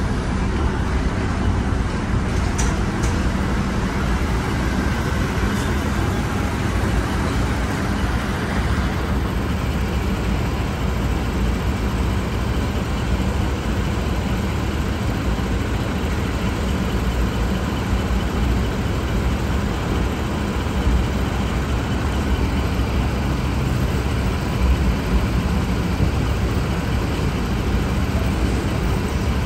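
Parked sheriff's SUV running at idle: a steady low engine rumble with a hiss over it.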